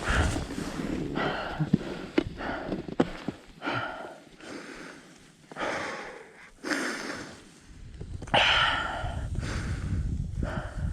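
Heavy, gasping breaths about every one to two seconds from a skier out of breath after struggling through deep powder, with wind rumbling on the GoPro microphone at the start and again near the end, and a few short clicks.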